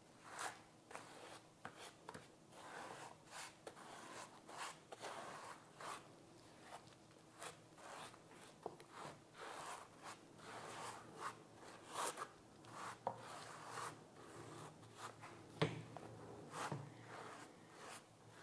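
Small trowel scraping lime plaster onto a foam sponge roller over a plaster bucket: an irregular run of soft scrapes and rubs, loading the roller with lime before the first roll on the wall. One sharper knock comes about three quarters of the way through.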